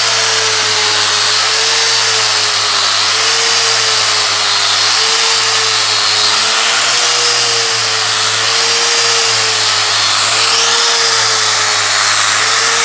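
Electric angle grinder running steadily under load with a 100-grit dry resin diamond polishing pad scrubbing over a marble floor during dry grinding. The motor whine wavers slightly up and down as the pad is worked across the stone.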